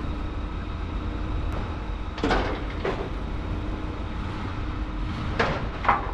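Clunks from a car-hauler trailer's steel loading ramps as a Rolls-Royce stretch limousine rolls down them: a pair a couple of seconds in and another pair near the end. Underneath, an engine runs steadily at a low idle.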